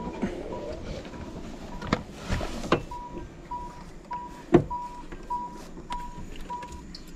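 A car's warning chime beeping about every half second while the driver's door stands open, with a few knocks and clicks; the sharpest knock comes about halfway through.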